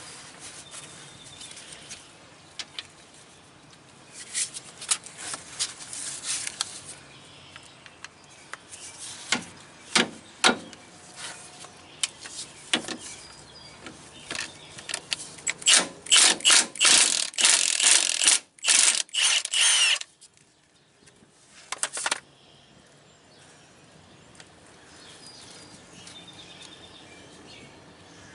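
Metal hand tool clicking and knocking against a hydraulic cylinder's mounting bolt in irregular bursts, densest with a quick run of sharp clicks in the middle, then stopping.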